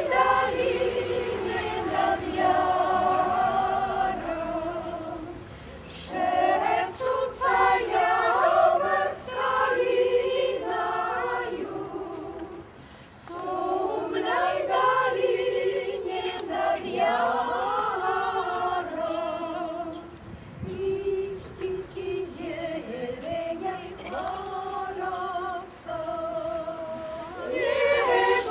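Mixed choir of older amateur singers singing a cappella, several voices together in phrases broken by short pauses for breath.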